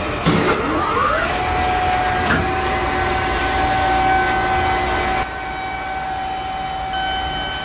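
Carrier water chiller's compressor starting up: a knock, then a whine rising in pitch for about a second as the motor comes up to speed, settling into a steady whine, with a second knock about two seconds in. It is the chiller running again after its lockouts were reset, a sound called a sweet sound.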